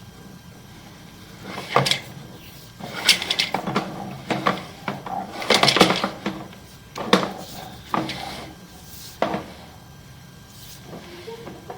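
An irregular run of knocks and clatters, about a dozen over several seconds, with a low steady hum underneath.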